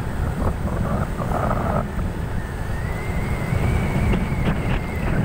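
Wind buffeting the microphone over the low, steady rumble of a vehicle driving along a concrete road. A faint high whine comes in about halfway through.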